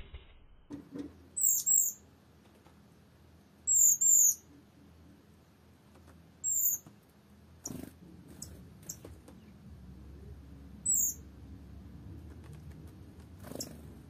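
High, thin calls of a small songbird: short falling notes, twice in quick pairs and then singly a few times. A few sharp clicks come in the middle, and another near the end.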